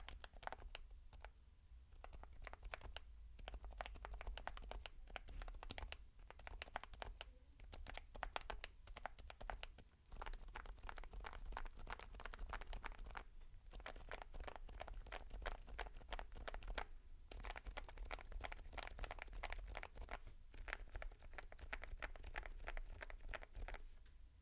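Typing on a mechanical keyboard fitted with Geon HG Yellow semi-silent tactile switches. The keystrokes are quiet and damped, coming in quick runs broken by short pauses every few seconds.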